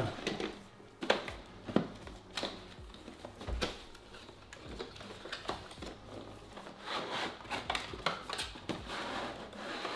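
Plastic packaging and a cardboard box being handled and opened by hand. There are scattered sharp clicks and taps at first, then busier rustling and crinkling from about seven seconds in.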